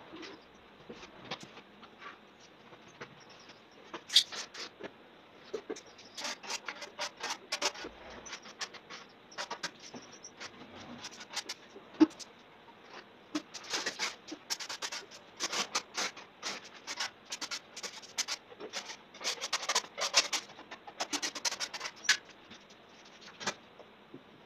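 Hand work on gypsum plaster: irregular scraping strokes of a tool against plaster and the bucket, sparse at first and busy from about six seconds on, with a sharp knock about four seconds in and another near the middle.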